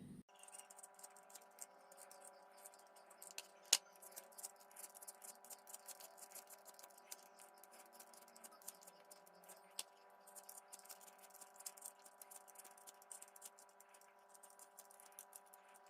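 Near silence: faint small clicks and scrapes of handling over a low steady hum, with a sharper click about four seconds in and another about ten seconds in.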